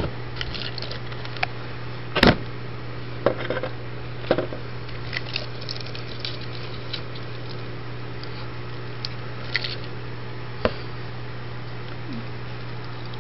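A steady low hum with scattered clicks and knocks, the loudest about two seconds in: handling noise from a handheld camera moved about over a plastic tub.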